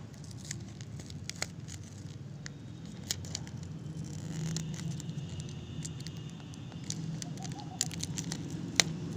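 Fingernails picking and peeling a paper sticker off its backing sheet: small irregular crackles and scratches over a low steady hum, with one sharper click near the end.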